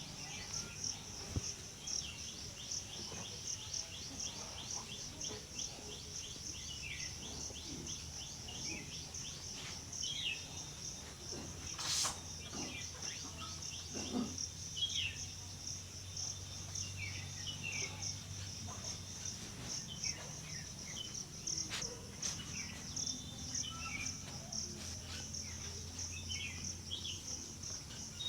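Insects trilling steadily in a fast, even pulse, with scattered short bird chirps and one sharp click about twelve seconds in.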